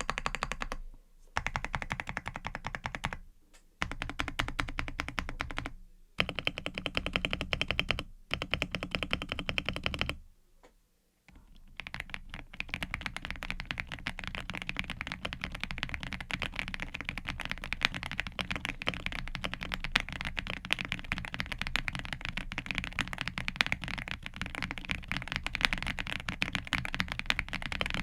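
Typing on an Aula F99 mechanical keyboard with 경해 switches. It starts with several fast runs of key clicks, each about two seconds long with short pauses between them. After a brief silence about ten seconds in, steady continuous typing follows.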